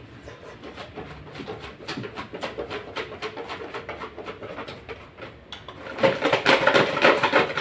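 Folded paper slips rustling and rattling in a clear plastic container as it is shaken and rummaged through, in quick rhythmic strokes that get much louder and busier about six seconds in.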